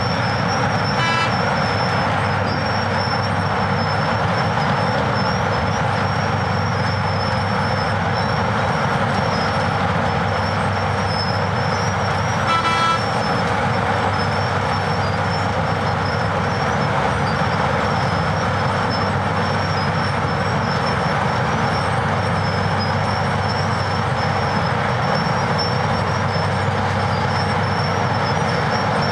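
Wirtgen W250 cold milling machine running under load, its diesel engine and milling drum grinding off asphalt in a steady loud din with a steady high whine over it, a dump truck running alongside. Two short horn toots sound, about a second in and again about thirteen seconds in.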